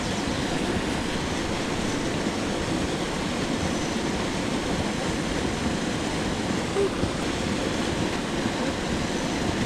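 Steady rush of white water pouring out of a spillway and churning in the channel below.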